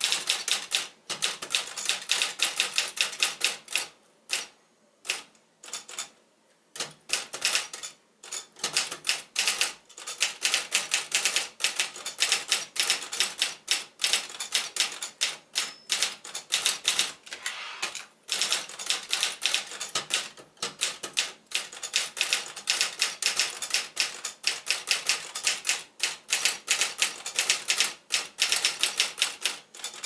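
Facit 1620 manual portable typewriter being typed on: a fast, uneven run of keystroke clacks as the typebars strike the platen. The typing breaks off for a few seconds near the start, with only a few scattered strikes, then carries on.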